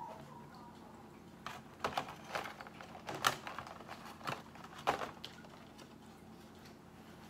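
Crab-leg shells and an aluminium foil pan being handled, giving a run of sharp clicks and crackles over a few seconds.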